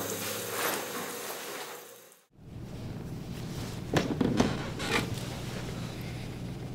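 Quiet indoor room noise with a steady low hum that fades out about two seconds in, followed by a few brief rustles and clicks.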